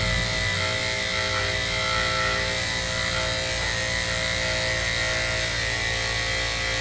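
Two-speed electric dog grooming clipper running with a steady hum, clipping the hair on a poodle's face against the grain.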